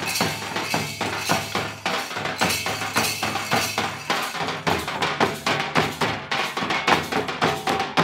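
Santal festival drumming: large bowl-shaped tamak' kettle drums and a tumdak' barrel drum beaten together in a fast, dense rhythm, with sharp high-pitched strikes among the drum beats.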